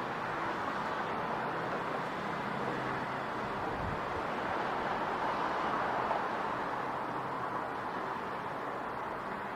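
Steady city traffic noise, an even rush of vehicles, swelling slightly about six seconds in.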